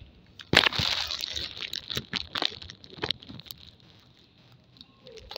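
Close crunching and crackling noises: a sudden loud burst about half a second in, then a run of sharp crackles for a couple of seconds before it quiets down.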